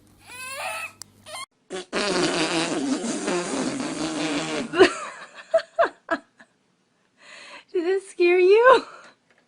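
A long, loud, raspy fart starting about two seconds in and lasting nearly three seconds, with a low wavering pitch. Short vocal sounds come before it and again near the end.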